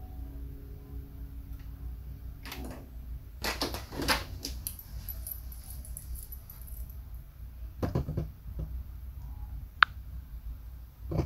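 The last clavichord notes die away within the first second or so. Then come scattered clicks, taps and rustles of handling, over a low steady hum.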